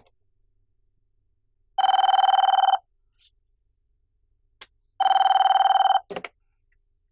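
Desk telephone ringing twice, each ring a trilling electronic tone lasting about a second. The handset clatters as it is picked up just after the second ring, answering the call.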